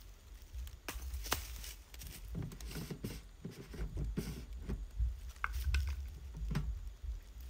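Rustling and scattered light knocks as someone moves over dry leaves and handles a plastic water jug, over a low wind rumble on the microphone.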